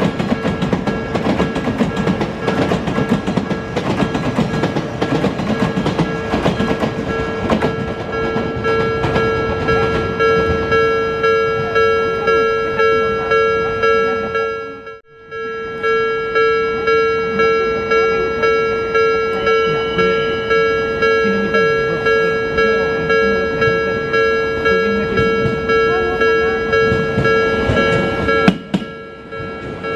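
Japanese railway level-crossing alarm ringing in even pulses, about two a second, while an Odakyu Line commuter train rumbles past on the tracks. The ringing cuts out for a moment halfway through and stops near the end.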